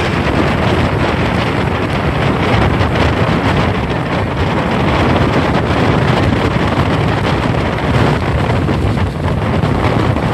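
Strong wind buffeting the microphone over heavy surf, the sea whipped up by Hurricane Maria. The noise is loud and steady, heaviest in the low rumble.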